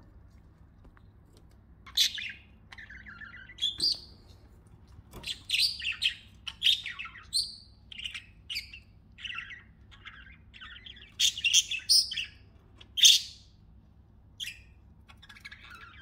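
Pet budgerigars chirping and warbling in a string of short, quick calls that begin about two seconds in, with one especially loud, sharp chirp near the end.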